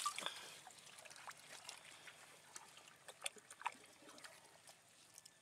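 Faint wet handling sounds from gloved hands working inside an elephant's mouth: scattered soft clicks and taps over a low hiss, the loudest a little past three seconds in.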